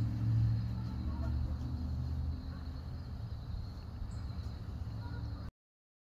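A steady low hum of a running engine, with a faint steady high tone above it. The sound cuts off abruptly near the end.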